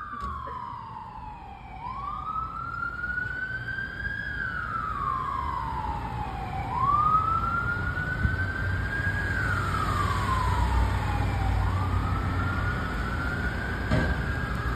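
Fire engine siren on a slow wail, rising and falling about once every five seconds, over the rumble of traffic that grows louder partway through.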